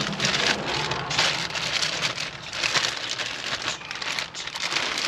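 Plastic packaging bag crinkling and rustling as it is handled and opened, with an uneven crackle throughout.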